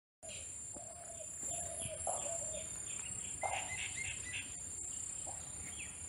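Insects keep up a steady, high-pitched drone. Over it, a small bird chirps in short repeated notes, a few a second, with a few lower calls underneath.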